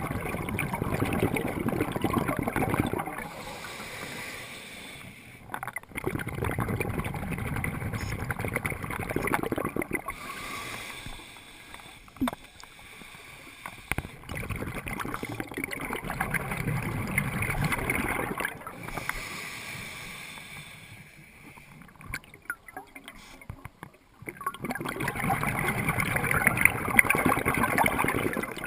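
Underwater gurgling rush of a scuba diver exhaling through a regulator, bubbles streaming out in four surges a few seconds long, with quieter spells between breaths.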